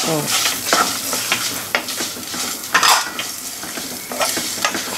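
Wooden spatula scraping and stirring whole spices (fenugreek seeds, black peppercorns and freshly added cumin) being roasted in a little oil in a nonstick kadai, with a light sizzle under irregular scraping strokes.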